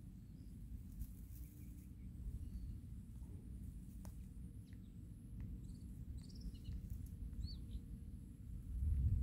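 Outdoor field ambience: a low steady rumble, louder near the end, with a few faint bird chirps about two-thirds of the way through.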